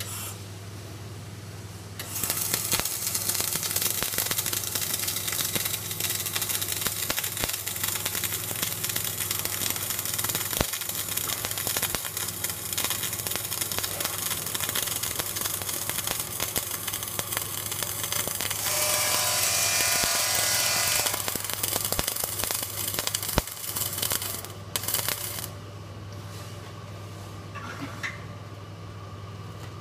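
Flux-cored arc welding: the arc strikes about two seconds in and crackles and hisses steadily for about twenty-three seconds, fuller for a couple of seconds in the middle, then stops, leaving a steady low hum and a few light clicks near the end.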